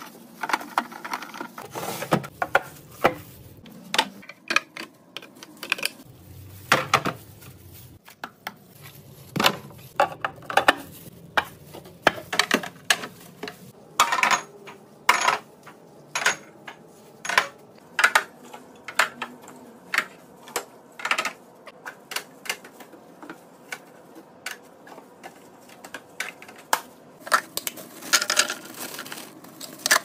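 Irregular clicks, knocks and clinks of packaged food, bottles and clear plastic fridge bins being set down and slid into place in a refrigerator.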